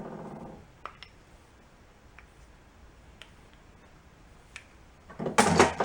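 Small metal engine parts being handled, with a few separate light clicks and taps, then a louder burst of clattering near the end.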